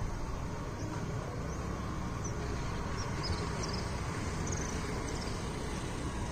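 Steady outdoor background noise with a low rumble, and a few faint, high bird chirps between about one and five seconds in.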